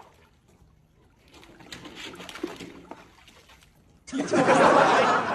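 A golden retriever jumping into a swimming pool: a loud splash about four seconds in, after softer splashing and movement at the water's edge.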